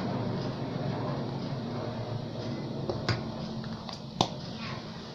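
A few short, sharp clicks and taps of a metal spoon and a small plastic spice pot, the clearest a little past three seconds and again just past four, as turmeric powder is spooned into a bowl of flour. A steady low hum runs underneath.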